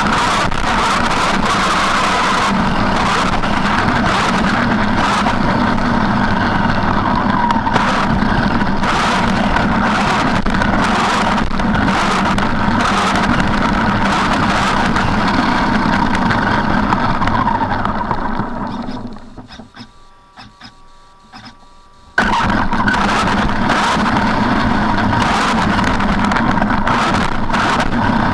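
Traxxas E-Maxx electric RC monster truck driving: a steady motor and drivetrain whine with running noise from the tyres. Near the end it winds down to quiet for about three seconds, then the full drive noise cuts back in abruptly.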